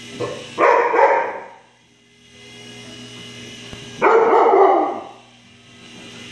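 Siberian husky puppy barking loudly twice, once about half a second in and again about four seconds in, each bark lasting about a second. Underneath runs a steady electric buzz, which fits the small motor of a toy helicopter.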